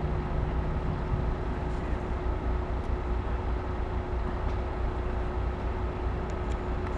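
Freight train of tank wagons hauled by an SNCF electric locomotive approaching: a steady low rumble with a constant hum running through it.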